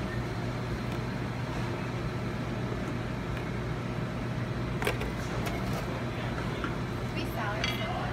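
Steady low hum and background noise of a working restaurant kitchen, with faint voices and one sharp click about five seconds in.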